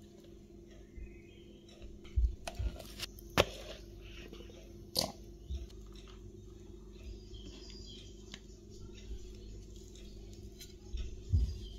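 Cake batter being spooned into a metal springform tin: a few soft knocks and clicks of the spoon and bowl, the loudest a little over three seconds in, over a steady low hum.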